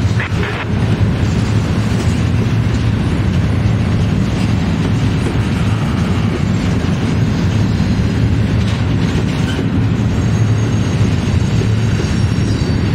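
Double-stack intermodal freight train's container well cars rolling past at speed: a steady, loud rumble of steel wheels on the rails.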